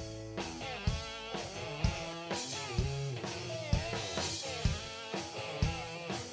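Live rock band playing: a drum kit keeps a steady beat of about two hits a second under an electric guitar line with bent notes.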